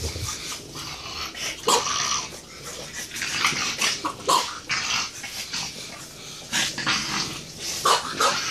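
French bulldog vocalizing in short repeated bursts, some with a brief whining pitch.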